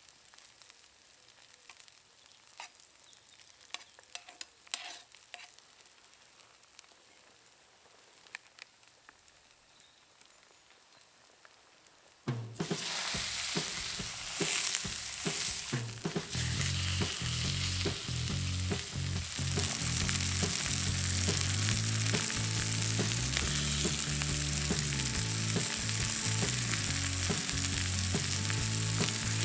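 Onions frying quietly in an iron skillet, with a fork clicking against the pan as they are stirred. About twelve seconds in, a raw steak is laid into the hot pan and a loud, steady sizzle starts at once.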